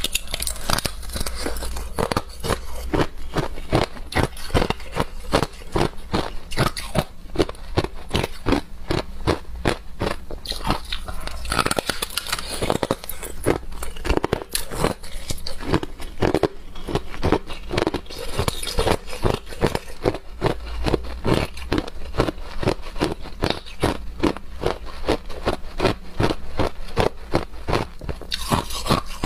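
Clear ice being bitten and chewed: a continuous run of sharp, crackling crunches, several a second, as the hard shards break between the teeth.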